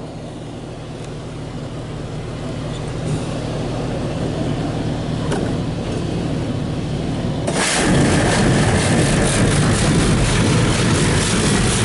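High-pressure water jets of a touch-free car wash's tire scrubber spraying against the car, heard from inside the cabin. The spray grows steadily louder, then turns much louder and hissier about seven and a half seconds in as the jets hit close by.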